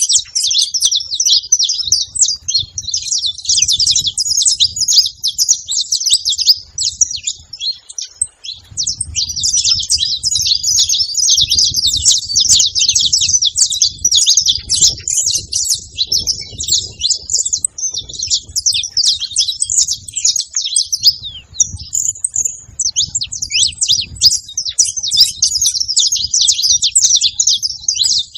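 A flock of saffron finches chirping and singing together: a dense, continuous chatter of rapid high chirps that thins briefly about 21 seconds in.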